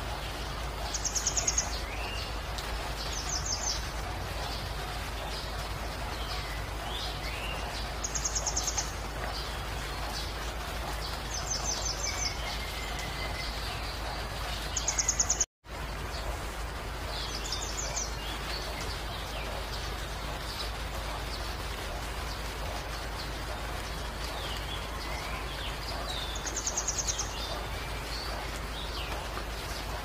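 Steady rain hiss with birds calling over it: a short, high, rapid trill repeats about seven times and is the loudest sound, with fainter chirps in between. The sound cuts out for an instant about halfway through.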